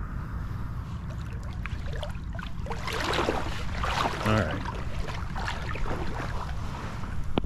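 Water sloshing and splashing as someone wades through knee-deep shallow water, heaviest from about three to four and a half seconds in, over a steady low rumble of wind on the microphone.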